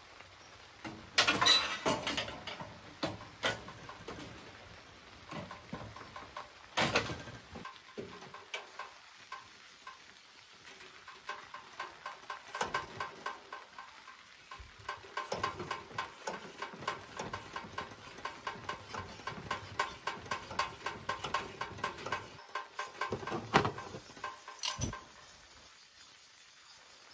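Green two-burner liquid-fuel camp stove: a few metal knocks as the fuel tank is handled and fitted, then a long run of quick, even clicks and squeaks, about two to three a second, from the tank's hand pump being worked to pressurize it. A sharp click comes near the end as the burner is lit.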